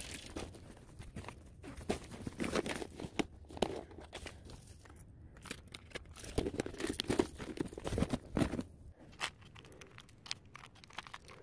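Close, faint handling noise: irregular rustling, crinkling and small clicks from fishing tackle being handled while a lure is tied on.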